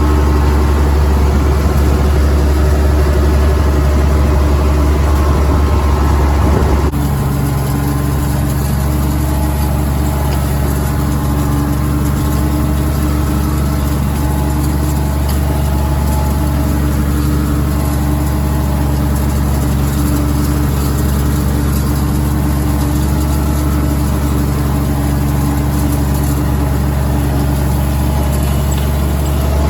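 IH 826 Hydro tractor engine running steadily, with a strong low hum; the sound steps down a little and changes pitch pattern about seven seconds in.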